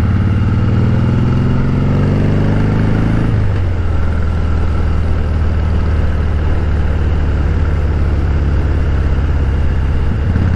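Harley-Davidson Breakout's V-twin engine running under way as the motorcycle is ridden. Its pitch rises gently for about three seconds, drops suddenly, then runs steady.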